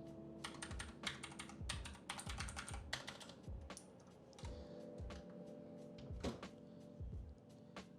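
Redragon K552 mechanical keyboard with clicky Outemu blue switches being typed on: a quick, irregular run of sharp key clicks and clacks.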